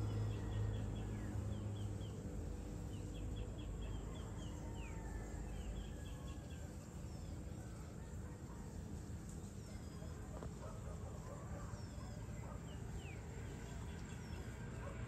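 Outdoor evening ambience: birds calling in groups of short rapid chirps and single falling whistles, over a steady low rumble.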